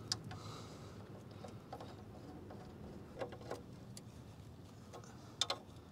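Faint metallic clicks of a wrench on the oil-pan drain plug as it is threaded back in and tightened: a single click at the start, two about three seconds in, and a sharper close pair near the end, over a faint low hum.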